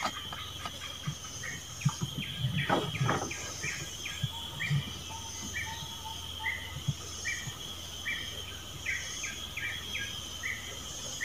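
Tropical forest ambience: a bird gives a repeated short chirp about twice a second over a steady high drone of insects. A few low knocks from the wooden boat sound in the first half.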